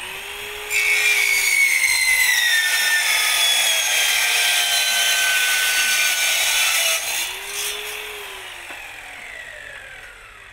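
Sliding mitre saw with an Irwin circular saw blade cutting through a hardened-steel circular saw blade: a loud, high-pitched metal-cutting noise from about a second in to about seven seconds, its tones slowly sinking in pitch under load. The motor then runs down with a falling whine.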